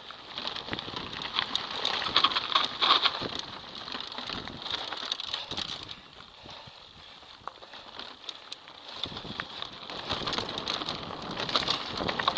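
Mountain bike riding down a dry dirt trail: tyres crackling over dirt and loose stones, with frequent clicks and rattles from the bike. It eases off for a few seconds past the middle, then picks up again.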